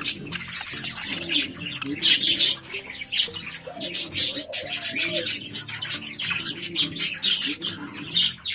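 Budgerigars chattering and warbling: a continuous run of rapid, scratchy chirps with lower wavering warbles.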